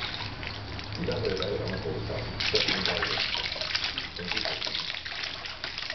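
Bath water splashing and trickling as a newborn's hair is rinsed with a washcloth over a plastic baby bathtub, with water running off the head back into the tub. The water gets louder about two and a half seconds in.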